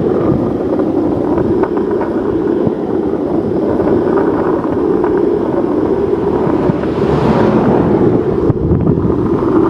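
Wind rushing over the microphone and longboard wheels rolling on highway asphalt during a fast downhill run, a steady loud rushing noise. A brief swell of higher hiss comes about seven seconds in.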